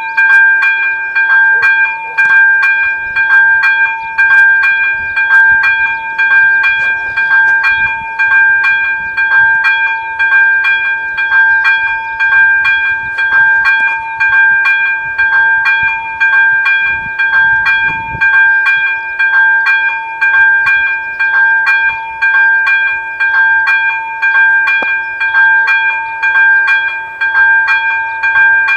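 Electronic level-crossing bell (AŽD ZV-02) ringing: rapid, evenly repeated strokes over a steady ringing tone, with the loudness pulsing regularly. It sounds while the crossing is activated, warning that a train is approaching.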